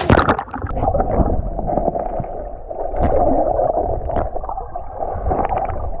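A person jumping into a stream pool: a splash right at the start, then muffled bubbling and gurgling heard underwater.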